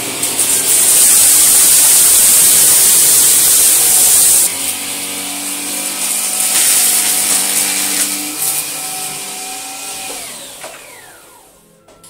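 Cordless vacuum cleaner running on a hard floor: a loud rushing hiss for the first four seconds or so, then a steadier motor whine from the Gtech AirRam. About ten seconds in, the whine falls in pitch and fades as the motor is switched off and spins down.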